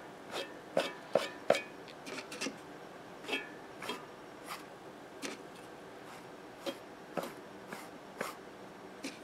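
Irregular light clicks and short scrapes of hand work on a 32 cm Audax loudspeaker as its old foam surround, softened with alcohol, is worked off.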